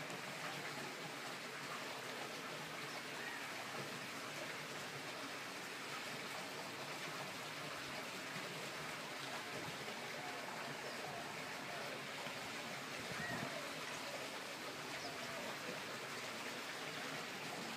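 Steady trickling and rushing of running water into a swimming pool, an even, unbroken wash of sound.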